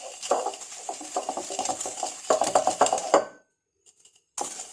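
A utensil clattering and scraping rapidly against a mixing bowl as butter and sugar are beaten together. It stops a little after three seconds in and starts again near the end.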